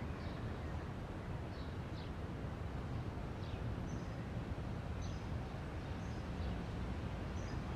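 Steady low background ambience with faint, scattered bird chirps.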